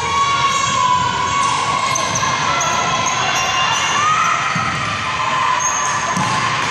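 Indoor basketball game on a hardwood gym floor: a ball bouncing and players' footsteps, short high squeaks, and crowd voices and shouts echoing in the hall. A steady, slightly wavering high hum runs underneath.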